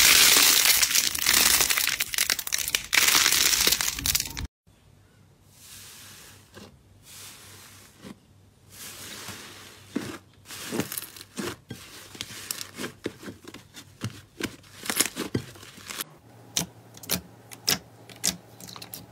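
Hands squeezing and pressing slime and soft clay. For the first four or so seconds there is a loud, dense crackle as a cluster of clay balls is squeezed, and it cuts off suddenly; softer, uneven squishing follows. Near the end comes a quick string of sharp clicks and pops as a hand presses into glossy clear slime.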